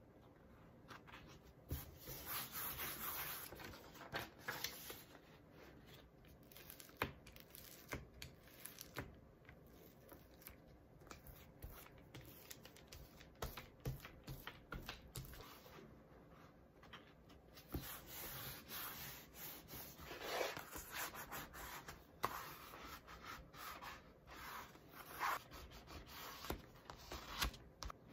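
Paper being rubbed down by hand: a pasted endpaper smoothed flat with a cloth pad over waste paper, in irregular bouts of dry scraping with light taps and clicks between.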